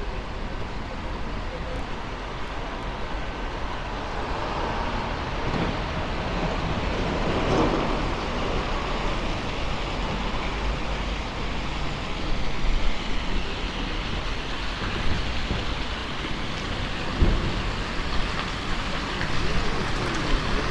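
Outdoor town-square ambience: a steady hiss of distant road traffic and city noise, with a few brief low knocks.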